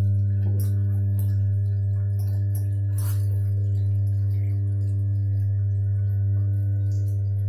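Steady, deep electrical hum with a stack of higher overtones from a live, energised 1000 kVA distribution transformer. A few light clicks come as a probe clip is fitted onto a cable.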